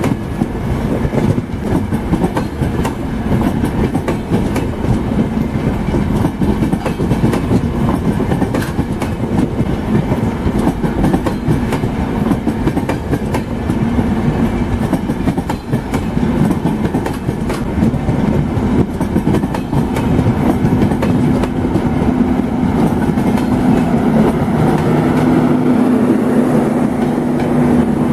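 Express passenger train coaches rolling past at speed, wheels clattering steadily over the rail joints. Over the latter half a steady low hum joins the clatter.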